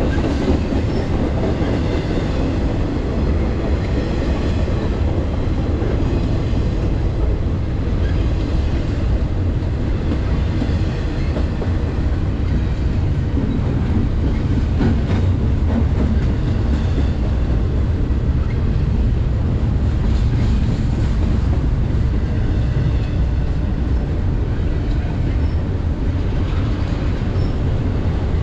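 BNSF intermodal freight train's double-stack well cars rolling past: a steady, loud rumble of steel wheels on rail with some clatter.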